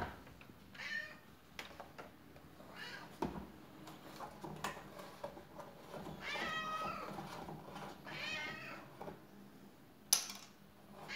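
Tabby cat meowing about four times, short meows and one longer meow about six seconds in. Light clicks in between, and a sharp click near the end.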